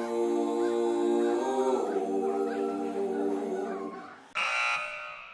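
Background music: sustained chords that change about two seconds in and fade out, followed by a short, bright accent just past four seconds.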